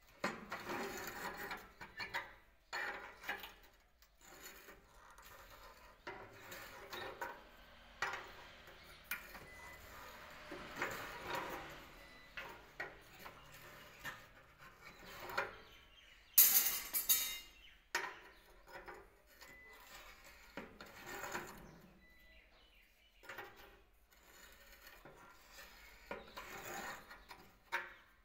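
Hand-operated rebar stirrup bender being worked by its lever: steel rebar scraping and clanking against the bender's rollers and the steel table in irregular knocks and rubs. A loud metallic clatter about two-thirds of the way through.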